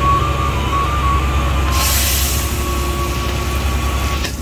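Fishing boat's engine running with a steady low drone, with a brief hiss about two seconds in.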